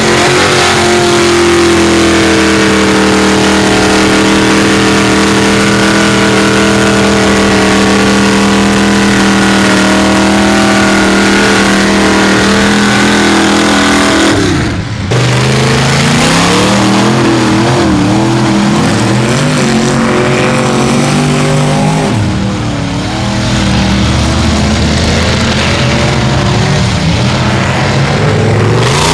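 Mud-bog truck engine held at high, steady revs while the big tires spin in deep mud. About halfway through there is a brief dip, and then the engine revs up and down in changing pitches.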